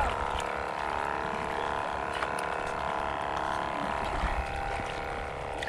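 Shallow seawater sloshing and lapping around a person's legs as they wade among rocks, with small splashes. A steady mechanical hum runs underneath.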